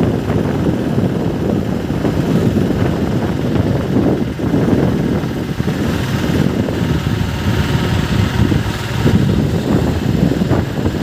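Steady engine and road noise of a moving passenger vehicle, heard from inside the cabin.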